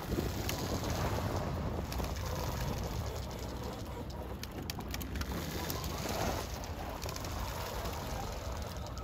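Wind rumbling on the microphone on a drifting boat, with scattered faint clicks.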